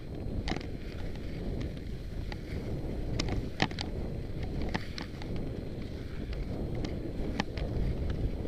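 Low wind rumble on the microphone of a camera moving along a snowy traverse, with about a dozen sharp clicks and ticks scattered unevenly through it.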